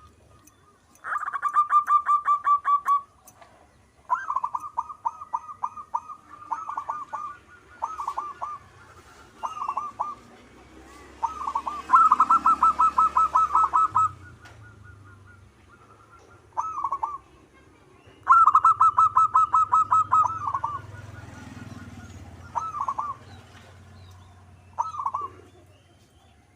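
Zebra dove (perkutut) cooing in repeated phrases of rapid, trilled coo notes. The longest phrases last two to three seconds, with short single phrases and brief pauses between them.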